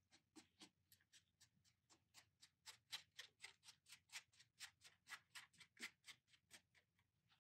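Faint, quick clicks and ticks, about four a second, as fingertips press and work a rubber tailgate seal strip into place along the tailgate edge.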